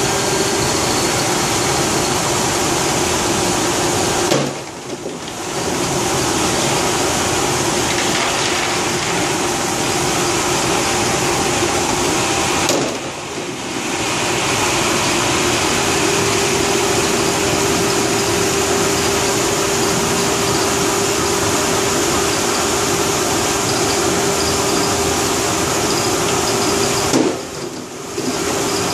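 Olney GP bean washer running while washing and destoning dry beans: a steady machine hum with a constant tone over water rushing and splashing through its stainless-steel tank. The sound dips briefly three times.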